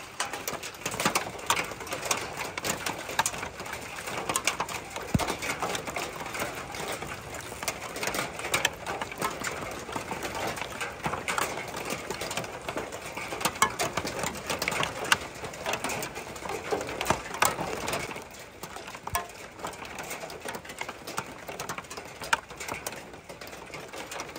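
Rain pattering on corrugated tin sheets: a dense, irregular patter of drops, easing off about 18 seconds in.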